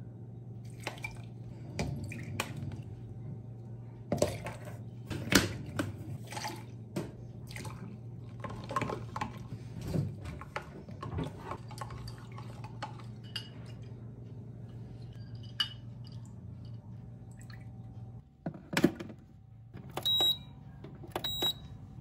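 Porcelain cups and saucers clinking as they are handled and set down, with liquid poured from a carafe, over a low steady hum. Two sharp ringing clinks come near the end.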